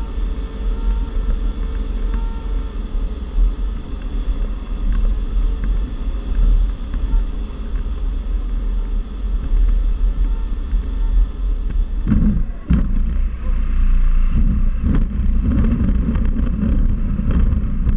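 Steady rush of airflow over a G103 Twin Astir glider's canopy on final approach, with a faint whistle that stops after about three seconds. About twelve seconds in the glider touches down, and the rush gives way to a rumble and irregular knocks as its wheel rolls over the grass.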